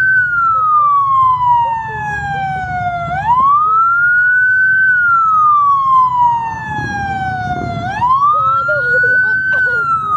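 Police car siren on a slow wail. The pitch climbs quickly, then slides slowly back down, repeating about every five seconds. It rises twice, about three seconds in and again about eight seconds in.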